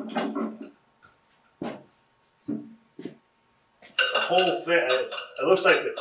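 Iron weight plates clinking and knocking a few times, short separate clanks, as they are handled and stacked on a load-test rig.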